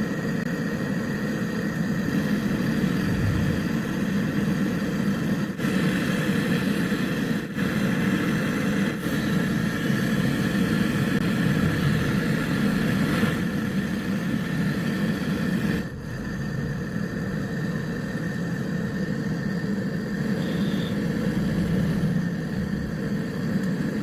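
A machine's electric motor running steadily with a low hum, its level dipping slightly about sixteen seconds in.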